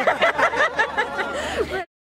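A woman laughing heartily, with other voices mixed in, cut off suddenly near the end.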